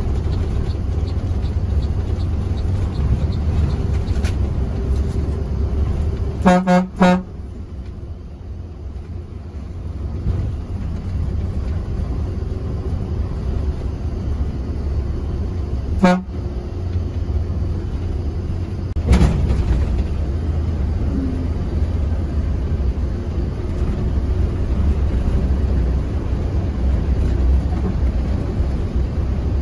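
Steady low engine and road noise from a Mercedes-Benz OH 1626 bus under way. About six seconds in, a vehicle horn toots twice in quick succession, and two more single short toots follow later.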